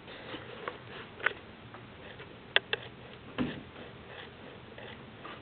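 Handling noises: light rustling with a few sharp clicks, a close pair of them near the middle, and a duller knock just after.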